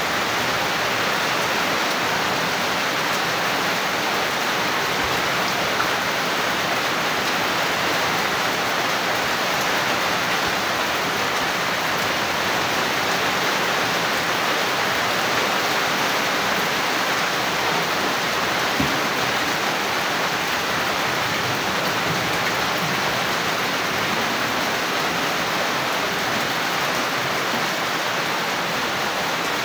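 Heavy rain falling steadily, with water pouring off the roof edges and splashing onto the flooded ground. A faint knock sounds twice, once about six seconds in and once near two-thirds of the way through.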